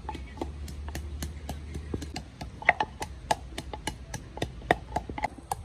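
Food being chopped with a knife on a wooden board in a steady rhythm, about four sharp knocks a second.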